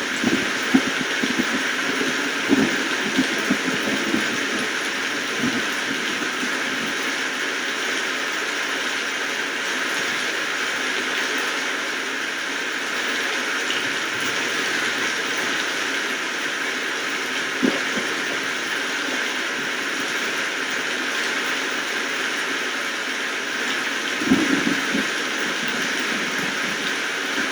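Steady rainfall hiss, with a few short clusters of heavier drops or taps in the first few seconds, once near the middle and again near the end.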